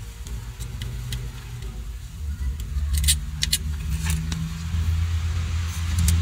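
A low, steady rumble that grows louder about two seconds in, with scattered light metallic clicks and taps from a screwdriver working over the circuit board of a metal-cased power supply.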